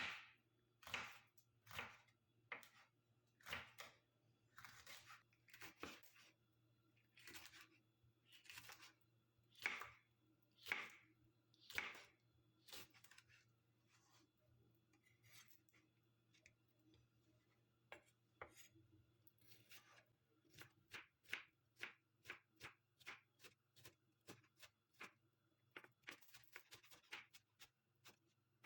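Knife cutting food on a cutting board: separate strokes about once a second for the first half, then quicker, lighter strokes near the end.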